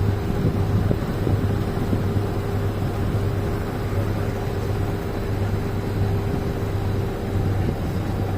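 Steady low motor hum with a faint higher steady tone that stops about a second before the end, over an even rush of background noise.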